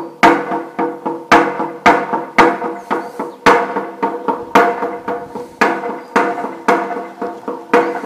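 Upbeat electronic dance track with plucky, percussive pitched notes on a steady beat, about two hits a second.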